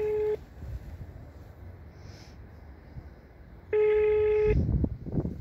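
Telephone ringback tone heard through a phone's speaker: a steady beep under a second long, sounding once at the start and again about four seconds later while the call waits to connect. A low rumble follows the second beep near the end.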